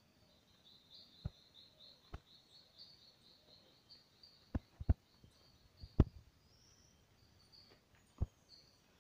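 Birds chirping in a steady run of rapid high notes, with a scatter of sharp clicks and knocks. The knocks come as a close pair just before five seconds in and a single loud one about six seconds in.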